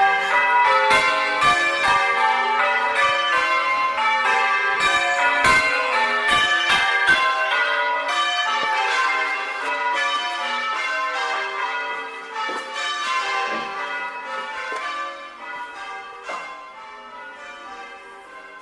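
Change ringing on a clonky old-fashioned ring of six church bells, 11 cwt, in G, struck one after another in a fast, even rhythm. The strikes grow steadily fainter through the second half.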